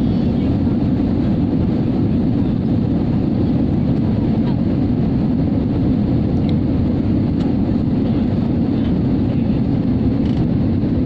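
Steady rumble of a jet airliner in flight, heard from inside the cabin: turbofan engines and airflow running at an even level.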